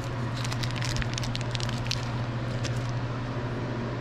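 Plastic packaging crinkling and crackling in the hands in quick bursts, stopping about three seconds in, over a steady low hum.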